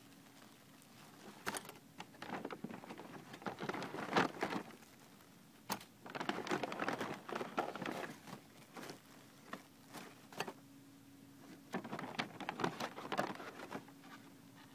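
Paper takeaway bag and thin plastic bag rustling and crinkling as hands rummage through them, in irregular bursts with short pauses between. A faint steady hum runs underneath.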